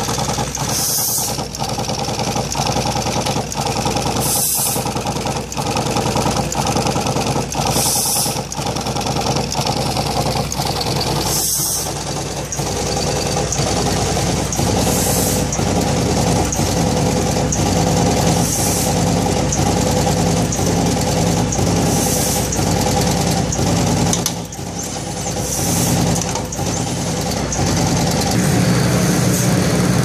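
Connector pin stitcher machine running at high speed, inserting bandolier pins into connectors and bending them to a right angle. Its cam-driven mechanism makes a fast, steady mechanical clatter, with a short pneumatic hiss about every three and a half seconds.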